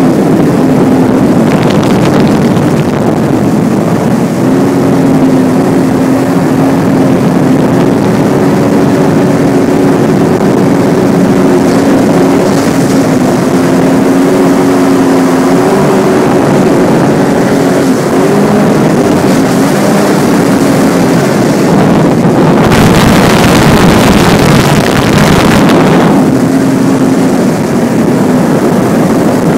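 Sea-Doo RXP-X personal watercraft engine running steadily under way, a steady hum whose pitch shifts slightly now and then. About 23 seconds in, a loud rushing noise swamps it for about three seconds.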